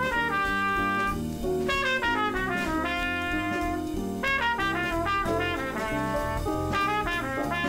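Jazzy background music with a brass melody line, trumpet- or trombone-like, moving from note to note over a steady bass.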